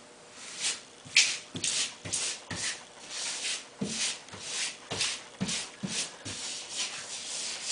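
Hand rubbing a vinyl wall decal flat against the wall in a series of quick swishing strokes, a little more than two a second, smoothing out wrinkles.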